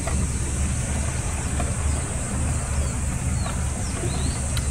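Low, steady drone of the fishing boat's engine running, with a few faint high bird chirps near the end.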